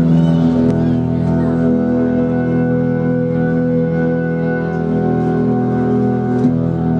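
Nylon-string classical guitar music: several held notes ringing together as a steady drone, with little change and few distinct plucks.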